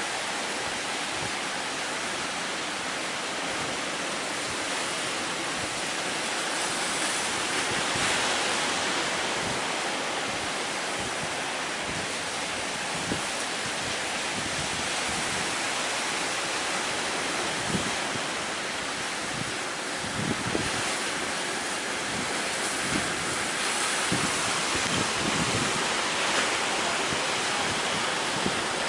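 Heavy surf breaking in strong wind: a continuous roar of waves, with gusts thudding on the microphone now and then, more often in the second half.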